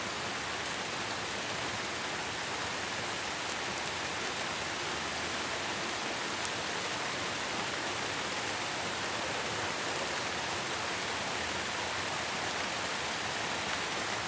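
Steady rainfall: an even, unbroken hiss with faint scattered drop ticks.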